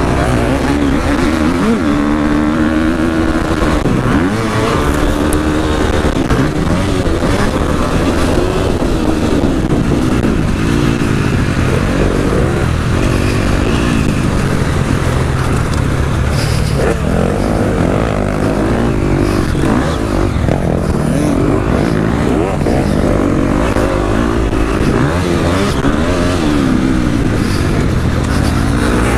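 Husqvarna motocross bike's engine heard from on board, revving hard and dropping back again and again as the rider accelerates, shifts and backs off through corners.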